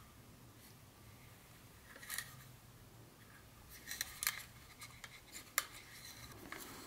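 Faint handling clicks and taps as a plastic O-gauge model locomotive is turned in gloved hands over its cardboard box: a click about two seconds in, a cluster of clicks around four seconds, and one sharper click a little before six seconds.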